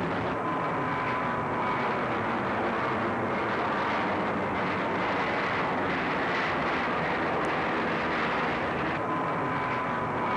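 Jet airliner engines running with a steady rushing noise and a faint high whine.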